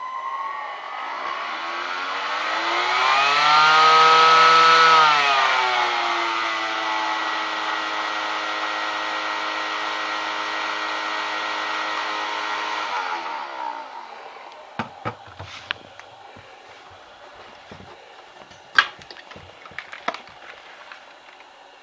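Iris Ohyama SBD-74-W cordless stick vacuum's motor running with a whine. Its pitch rises about two seconds in, holds briefly, then drops back to a steady run. The motor winds down and stops after about thirteen seconds, followed by a few light clicks and knocks.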